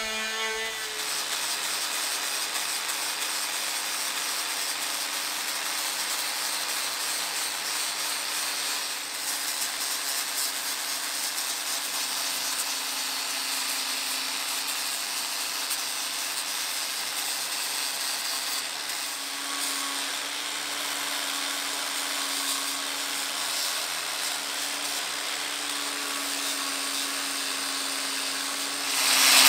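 A short whine from an oscillating multi-tool sanding the wooden wheel rim, then an angle grinder running steadily with an abrasive disc, grinding rust off the iron band of a wooden wagon-wheel hub.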